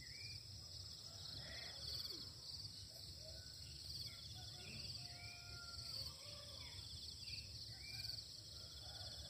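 Faint dawn ambience: insects trilling steadily, with scattered short bird chirps and a few brief whistled notes, over a low steady rumble.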